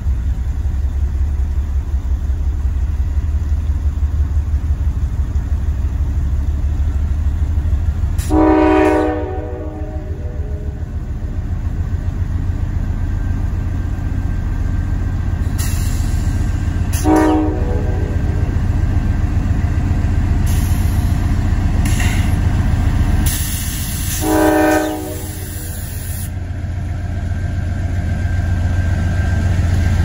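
Train engine rumbling steadily while the locomotive horn sounds three blasts: a longer one of about a second a little over a quarter of the way in, then two shorter ones later.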